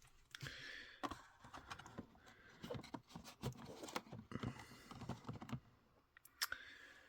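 Faint, irregular clicks and taps of small diecast models being handled and moved about on a display shelf.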